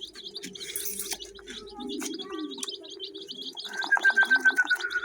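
A crowd of chicks peeping in rapid, high, continuous chirps over a steady low murmur of other birds. Near the end a loud, fast run of pulsing notes, about ten a second, starts and becomes the loudest sound.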